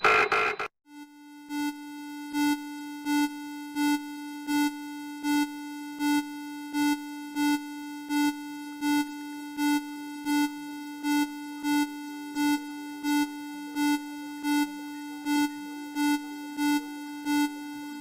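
Electronic emergency alert alarm: a loud, rapidly pulsing alarm cuts off under a second in, and after a short gap a steady low buzzing tone starts, with a louder beep repeating about every 0.7 seconds.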